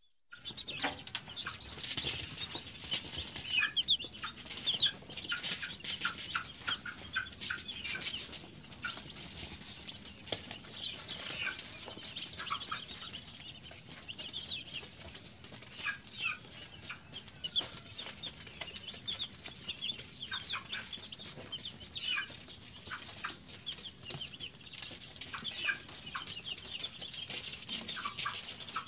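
A pen of young broiler chicks peeping: many short, high chirps overlapping without a break, over a steady high-pitched hiss.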